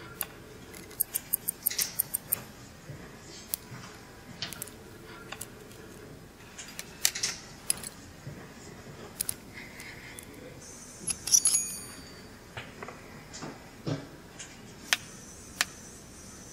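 Small metal tools and watch parts clicking and tapping at watchmakers' benches: sparse sharp clicks, with a quick run of about eight clicks about a second in and a brief high metallic ring about eleven seconds in.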